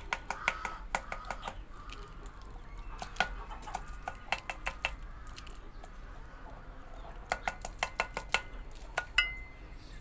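Screwdriver tip scraping and tapping against the plastic drain-pump filter of a washing machine, prying out clogged black debris: quick clusters of clicks, with one sharper clink that rings briefly near the end.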